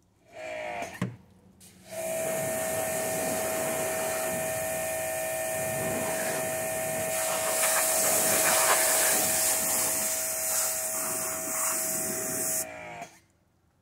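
Electric pressure washer spraying: a short burst with the motor spinning up, a brief stop, then about eleven seconds of steady running, a motor whine under the hiss of the water jet, winding down with a falling whine when it stops.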